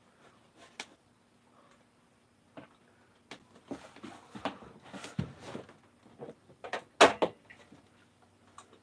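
Scattered knocks, taps and rustling of someone moving about on the floor of a small truck-camper cabin and handling painting gear, with the sharpest knock about seven seconds in.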